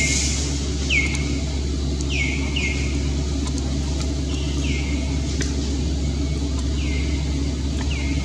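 A steady low rumble, with short high chirps that slide down in pitch, repeating about every second or two.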